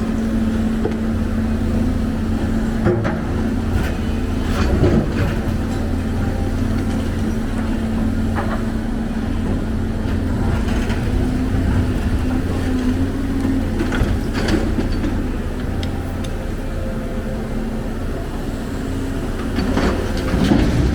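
Heavy diesel machine engine running steadily, with a few short knocks and clanks, the loudest about five seconds in, again about two-thirds of the way through, and near the end.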